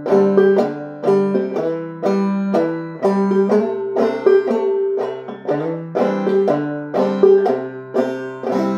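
Five-string banjo played clawhammer style in double C tuning (G-C-G-C-D), picking out an old-time fiddle tune in the key of C with quick struck notes and brushed strums. Near the end it lands on a chord that is left ringing.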